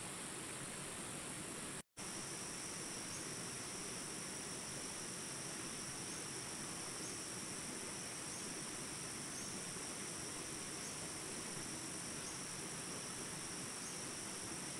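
A steady high-pitched chorus of insects, such as crickets, over an even background hiss. The sound cuts out completely for an instant about two seconds in.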